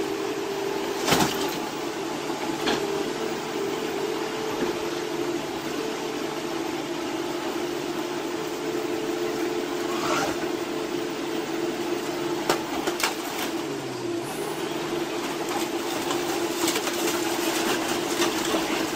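Scrap car baler running with a steady hydraulic hum as its orange lid folds down and crushes a wrecked car. Sharp cracks and snaps of bending metal and breaking glass come about a second in, around ten seconds in, twice a little after twelve seconds, and as a run of crackles near the end.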